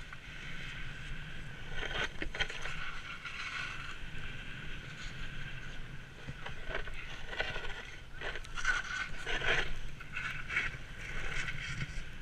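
Snowboard sliding over snow: a continuous hiss of the base on the snow, with irregular louder scrapes as the edges bite in turns, most of them in the second half.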